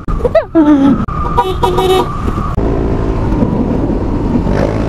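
Motor scooter riding along at speed, its engine running under a steady low rush of wind on the microphone. At the very start a short falling shout, then a horn honks in several short beeps over the next two seconds or so.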